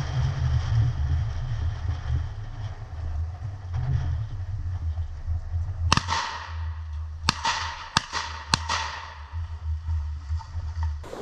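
Four shotgun shots in quick succession over about two and a half seconds, the first the loudest, each followed by a rolling echo. Wind buffets the microphone throughout.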